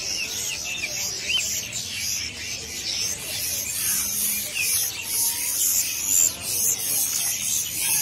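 Dense chorus of many caged songbirds chirping and calling at once, short high chirps overlapping continuously.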